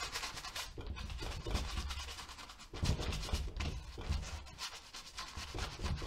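Old stiff-bristled paintbrush scrubbing and dabbing paint onto a canvas, a quick irregular run of scratchy strokes with a few soft thumps.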